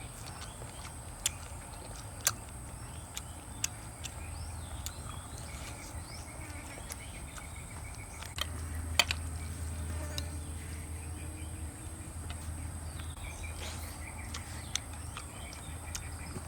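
A steady high-pitched drone over a low hum, with scattered sharp clicks, one louder click about nine seconds in.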